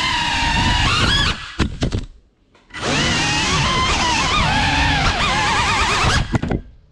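GEPRC Cinelog 35 FPV cinewhoop's brushless motors and ducted propellers whining, the pitch rising and falling with the throttle. Over a second in the whine breaks up and drops away, returns about three seconds in, then stutters and cuts off near the end as the quad crashes.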